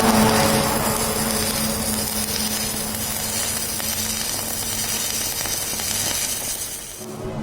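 Arc welding: the arc's steady crackling sizzle over a low machine hum, cutting off suddenly near the end.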